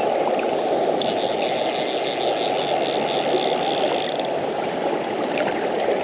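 A fly reel clicking in a fast, even run of ratchet clicks for about three seconds, starting about a second in, over the steady rush of a fast river.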